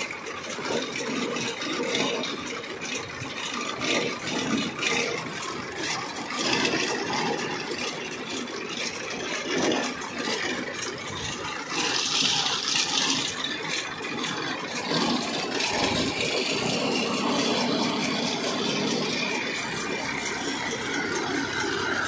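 Massey Ferguson tractor running with a Bharat Baler 1050 round baler hitched behind it: a steady, noisy mechanical rush with uneven clatter, and a brief hiss about halfway through.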